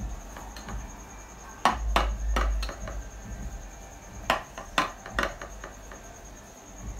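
Metal utensils knocking and clinking against a glass baking dish and plates as lasagna is cut and served: a cluster of sharp knocks about two seconds in, then three more about half a second apart later on.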